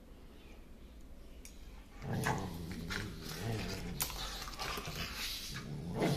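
A husky and a white shepherd-type dog play-fighting mouth to mouth: low play growls and sharp snaps of jaws, starting about two seconds in.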